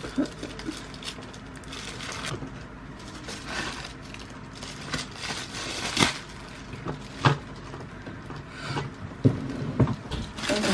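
Thin white packaging being unwrapped by hand: continuous crinkling and rustling, with a few sharp clicks or snaps in the second half.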